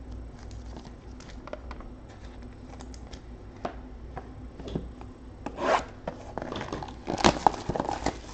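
A trading card box being handled and torn open: light clicks and rustling of cardboard and plastic wrap, then louder ripping and crinkling about five and a half seconds in and again around seven seconds.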